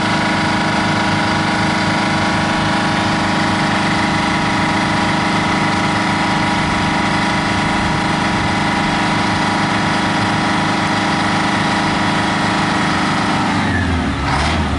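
White 9564 truck's Detroit Diesel engine idling steadily. Near the end its note drops and a short hiss follows.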